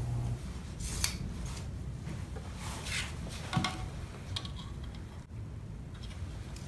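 A few short, faint clicks and scrapes of a measuring tool being handled against the clutch pressure plate and bellhousing, over a low steady hum.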